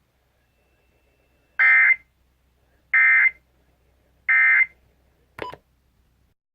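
Emergency Alert System end-of-message signal on a radio broadcast: three identical short bursts of SAME digital data, each about a third of a second long and a little over a second apart, marking the end of the alert. A short click follows near the end.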